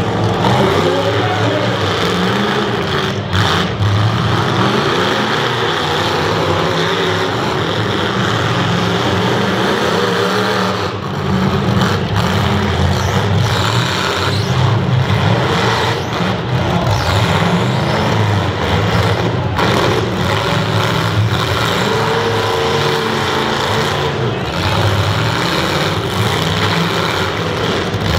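Several demolition derby cars and trucks running hard, engines revving loud and unevenly as they back up and ram one another, with occasional short bangs of metal on metal from the hits.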